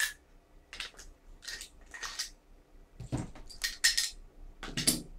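Metal parts of a WE M4 gas blowback airsoft rifle being handled during assembly: a string of short, sharp metallic clicks and clacks, irregularly spaced, with the loudest knocks near the end.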